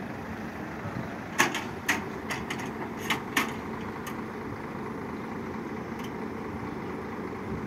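Crane truck's engine running steadily while it holds the load, with a quick run of sharp knocks and clicks about one and a half to three and a half seconds in, the first the loudest.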